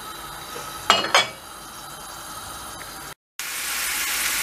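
Quiet kitchen background with a brief sound about a second in while chopped onion is tipped into oil; then, after a cut about three seconds in, finely chopped onion sizzling steadily as it fries in oil in a stainless-steel frying pan.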